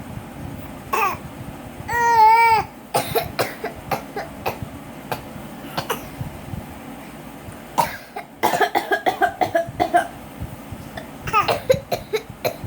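Bouts of short coughs from a mother and a small child imitating her cough, with a loud, high wavering squeal from the child about two seconds in.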